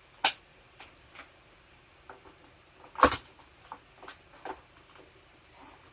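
Knocks and small clicks of a dirt bike's seat and its screw being handled and fitted, with two sharper knocks, one just after the start and one about three seconds in.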